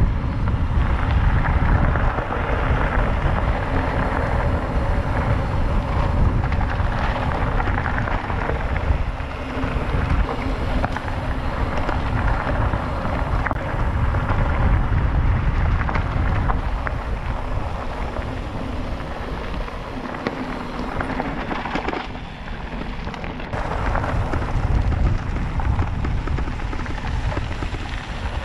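Wind buffeting the microphone of a camera on a moving mountain bike: a loud, steady rushing with heavy low rumble and no clear pitched sound, dipping somewhat around two thirds of the way through.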